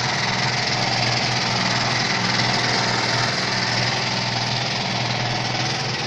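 Thermocool 2.5 kVA generator's small single-cylinder petrol engine running steadily on LPG (cooking gas) through a hybrid gas carburetor, with an even hum.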